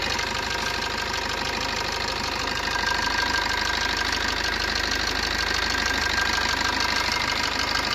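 Maruti Ritz engine idling steadily with a fast, even ticking, its timing chain freshly replaced and tensioned: no chain rattle is heard.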